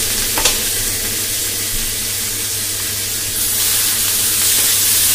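Grated onion sizzling in hot mustard oil in an aluminium kadhai, with a steel ladle stirring it and knocking once against the pan. The sizzle grows louder about two-thirds of the way in as the freshly relit gas heats the pan.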